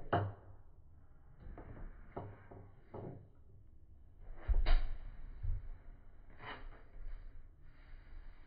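A dog sniffing and snuffling hard at the gap under a cabinet, with about five sharp knocks as it bumps against the furniture; the loudest knock comes about halfway through.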